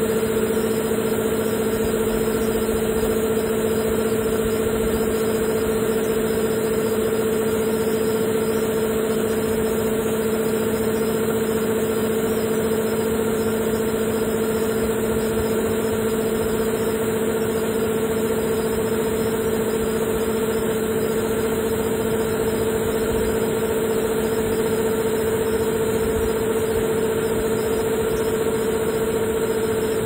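Combine harvester running steadily while its unloading auger pours rice grain into a trailer: an even, unchanging machine drone with a steady hum.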